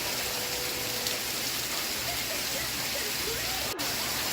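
Steady rainfall, with faint voices from a TV sitcom underneath and a momentary dropout in the sound near the end.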